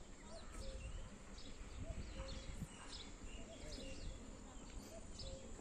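Birds chirping: short, scattered calls and whistles, some high and some lower, over a steady thin high-pitched tone and a low, uneven rumble.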